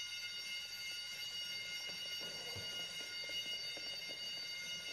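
Electric school bell ringing continuously.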